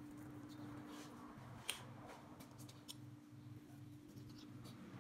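Knife cutting through bread dough, the blade clicking faintly on a stone countertop a few times, the sharpest click a little under two seconds in and a run of small ticks near the end. A low pulsing hum runs underneath.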